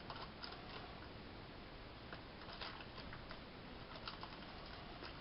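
Faint handling noise: a few soft clicks and light rustles over a low steady hiss, as a wrapped protein bar is turned over in the hand.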